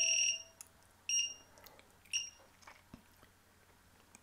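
High-pitched electronic beeping from the Rekon7 quadcopter's lost-model alarm buzzer, set off as the flight controller is powered over the cable: one beep of about half a second at the start, then two short beeps about a second apart.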